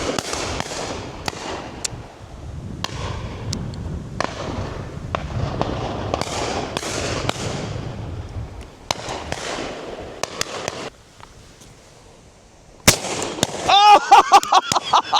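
A volley of 12-bore shotgun shots from several guns on a driven game shoot, fired in quick, overlapping succession with echoes, for about eleven seconds before a short lull. Near the end one sharp shot is followed by a loud, fast run of pulsed, pitched calls.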